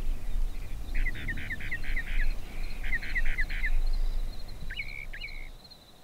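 A small bird calling in quick runs of short, sweeping chirps, three groups with pauses between, over a low rumble that fades out near the end. A faint, steady insect trill starts about four seconds in.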